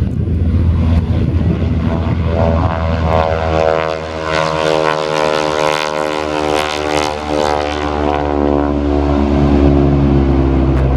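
Radial-engine propeller warbird, a replica Japanese fighter-bomber, taking off at full power and passing by. The engine is loudest in the middle, then its pitch drops as it moves away. Low wind rumble on the microphone runs underneath.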